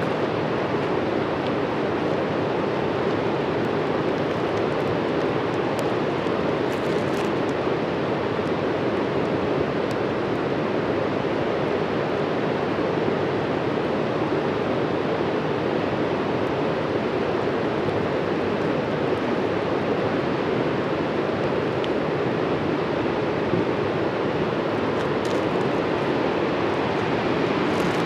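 River water flowing over a rocky bed: a steady, even rush of water with no breaks.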